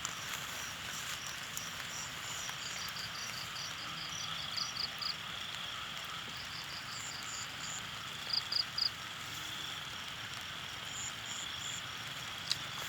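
Outdoor chorus of chirping insects: short runs of high, evenly spaced chirps repeating every second or two over a steady hiss. A single sharp click comes near the end.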